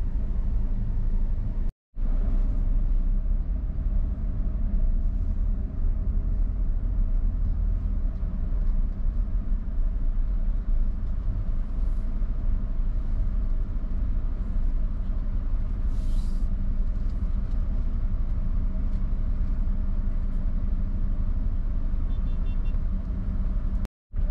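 Motor vehicle engine and road noise, a steady low rumble as heard while riding in the vehicle. The sound cuts out completely for a moment about two seconds in and again near the end.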